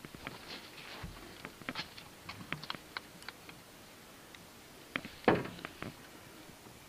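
Scattered small clicks and taps, then one sharp louder knock about five seconds in: fishing rods and gear being handled in a metal boat.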